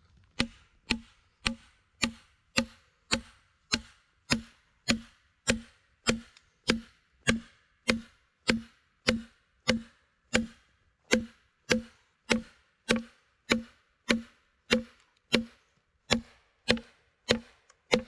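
Steady, even blows driving an axe into a log along its crack to split it into boards: about thirty knocks, a little under two a second, each with a short low ring. The log has not yet split.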